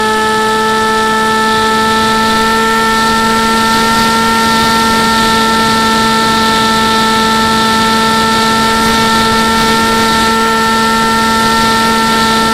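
RC model airplane's motor and propeller running at steady throttle, heard through the onboard camera's microphone: a steady whine holding nearly one pitch, with a hiss of wind noise over it.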